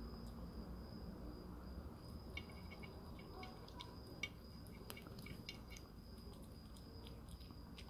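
Siamese kitten eating wet canned cat food from a dish: faint wet chewing and licking clicks, in a quick run through the middle, over a thin steady high tone.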